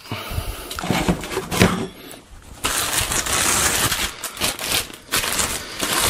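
Clear plastic packaging bag crinkling and rustling as it is handled. Near the start a battery pack and tools knock against a cardboard box.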